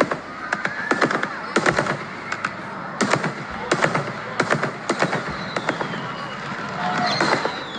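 Fireworks going off in a rapid, irregular string of sharp cracks and pops, several a second.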